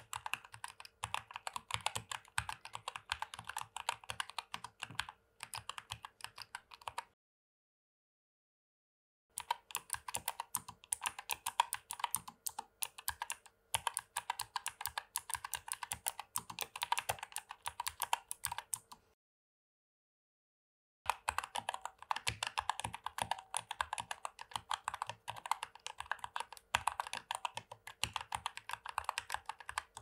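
Fast continuous typing on a NuPhy Air60 V2 mechanical keyboard, in three stretches split by two short silences: first with Gateron Brown 2.0 tactile switches, then Blue 2.0 clicky switches, then Red 2.0 linear switches.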